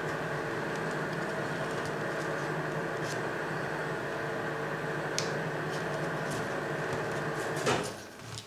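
A steady mechanical hum from an appliance or fan running, which cuts off suddenly near the end. A few faint clicks and crinkles come as folded paper origami pieces are pressed into place.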